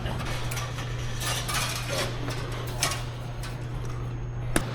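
Scattered metallic clinks and taps, a few of them sharp, from wires and tools working against a metal electrical panel, over a steady low hum.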